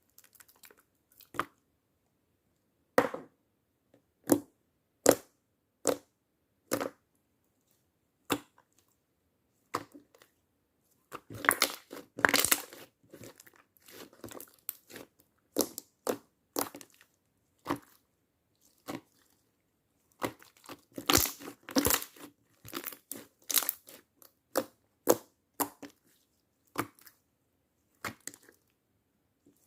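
Slime being squished and pulled by hand, giving separate sharp clicks and crackly pops, with two denser runs of crackling near the middle and again about two-thirds through.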